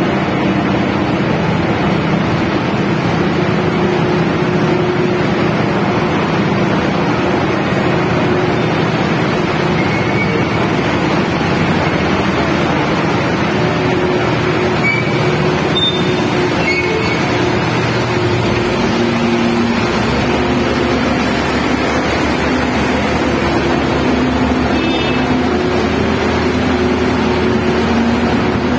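Heavy diesel machinery running steadily inside a construction tunnel: a constant engine drone, with a second low engine note joining about two-thirds of the way through.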